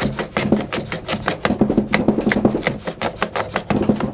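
Hand plane run on its side along a shooting board, shaving the end grain of a walnut board in quick repeated strokes, each a short scraping swish. It is trimming the end square, back to the marking-knife line.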